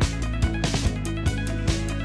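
Background music with a steady beat and sustained guitar-like tones.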